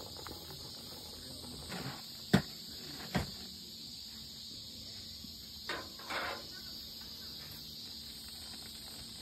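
A steady high chirring of insects, likely crickets, runs throughout. Two sharp knocks sound about two and three seconds in, the first the loudest, and a few softer clatters follow later.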